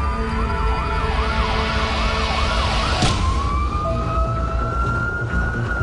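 Ambulance siren running in a fast yelp that switches, about three seconds in, to a slow wail rising in pitch, over a steady low rumble of vehicle noise.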